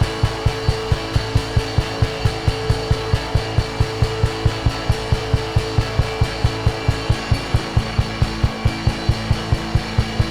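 Background worship music: sustained chords over a fast, steady low beat of about four to five pulses a second, with the chord changing about seven seconds in.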